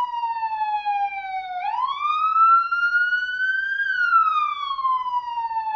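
Police siren in a slow wail: the pitch sinks, climbs back up from about one and a half seconds in, then slowly falls again.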